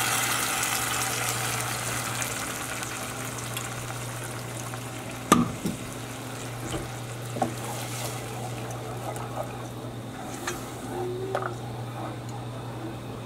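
Browned rice in a hot pot sizzling as the tomato liquid goes in, the hiss fading over the first few seconds. A sharp knock comes about five seconds in, then a few light knocks and a wooden spoon stirring near the end, over a steady low hum.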